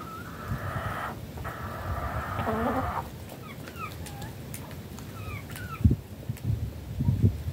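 A rooster crowing once, a long call of about three seconds with a short break about a second in and a falling end. Short chirping calls from the hens follow.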